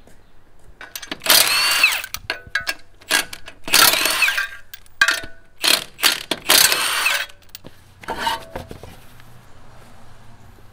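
Cordless impact wrench running in short bursts of a second or less, hammering and spinning lug nuts off a wheel, with brief pauses between nuts.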